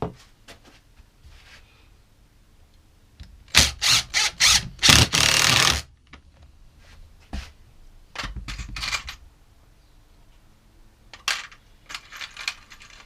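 Workshop clatter: wood parts and tools knocking and clicking on a bench in several short flurries, with one loud noisy burst about a second long near the middle.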